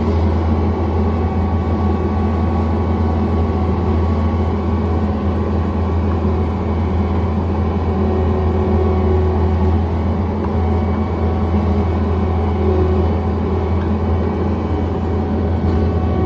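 John Deere 317 skid steer's diesel engine running steadily at a constant speed, a loud, even drone.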